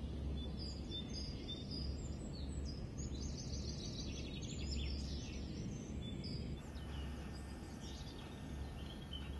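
Birds chirping and singing: many short high calls and a rapid trill, over a steady low hum. About two-thirds of the way through, the birdsong thins to a few fainter calls.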